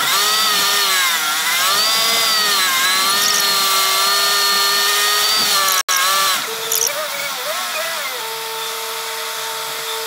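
Semi-truck engine and turbo whine from inside the cab, rising and falling in pitch as the truck pulls slowly across a lot. The sound cuts out for an instant about six seconds in, then settles into a steady whine near the end.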